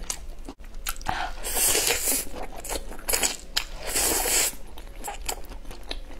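Noodles in black bean sauce being slurped off chopsticks in several loud, airy pulls, with wet chewing and mouth clicks between them.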